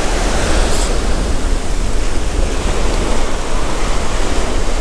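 Small waves breaking and washing up a sandy beach: a steady, loud rush of surf.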